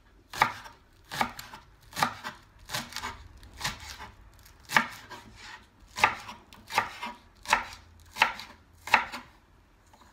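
Kitchen knife slicing spring onion greens on a wooden cutting board: a steady series of sharp knocks, about one every three quarters of a second, stopping near the end.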